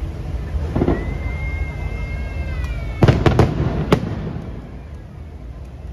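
Fireworks: a whistling shell holds one pitch for about two seconds and dips slightly at the end. Then come four sharp bangs as shells burst, three close together about three seconds in and one just before four seconds.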